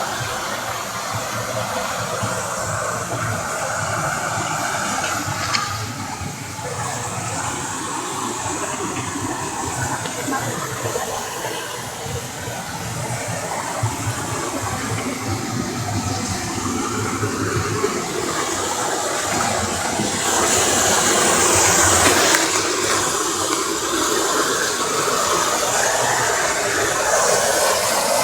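Rushing water, a steady loud noise that swells somewhat in the last third.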